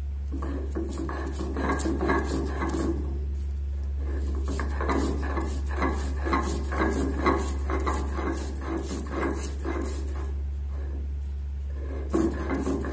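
Stone grinding roller of a sil-batta scraping and crushing fresh mint leaves on a flat stone slab in rhythmic back-and-forth strokes. It pauses briefly a few seconds in and again near the end, over a steady low hum.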